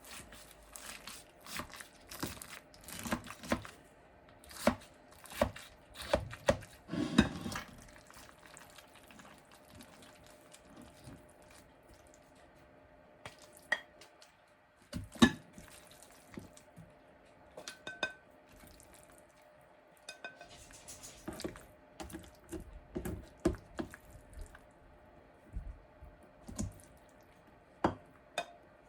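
Serving utensils and dishes: a spoon scraping and knocking against a baking dish and plates as food is served, in scattered clinks and knocks with quieter stretches between.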